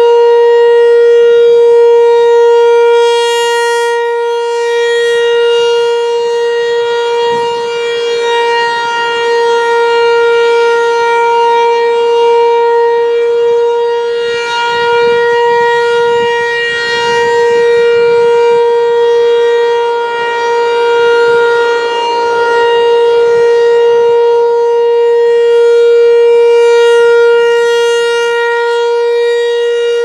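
Federal Signal Equinox electronic outdoor warning siren sounding the steady alert signal, one unchanging pitch. Its horn rotates, so the tone swells loud and fades about every 8 seconds as it sweeps toward and away.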